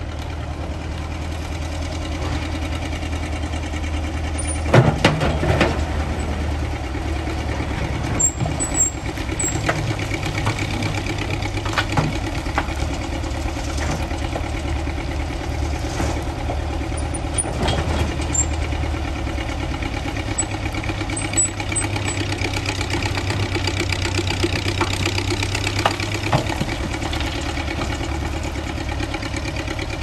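Vintage Ruston Bucyrus 19-RB cable-operated excavator at work: its engine runs with a steady low hum, broken by occasional clanks and knocks from the machinery and bucket, the loudest about five seconds in.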